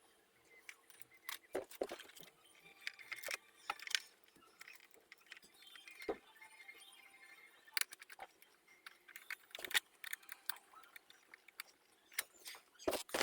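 Faint, scattered metallic clicks and clinks of small bolts, nuts and tools being handled while a handlebar USB socket mount is bolted on.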